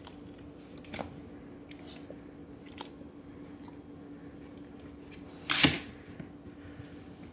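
A dog's claws clicking lightly on a wood floor as it noses at a slice of bread, with one louder short noise about five and a half seconds in, over a steady low hum.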